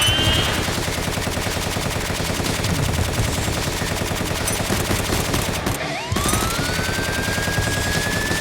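Continuous rapid automatic gunfire with a fast, even rattle of shots. It breaks off for a moment about six seconds in and resumes, while a rising tone glides up and holds underneath.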